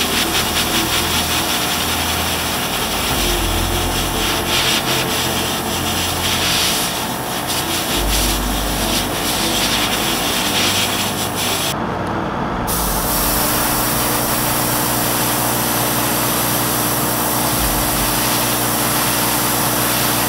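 Rubbing and scraping of hand work on small plastic model parts, in quick strokes through the first half, then steadier after a short break a little past the middle.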